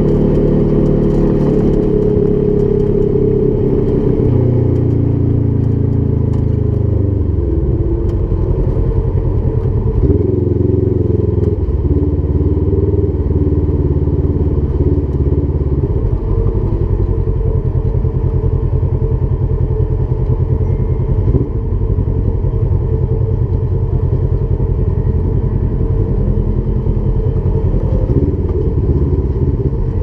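Polaris 1000 XP UTV's twin-cylinder engine running while it is driven on a trail. The engine note falls away about six seconds in as it slows, changes again around ten seconds, then holds a steady drone.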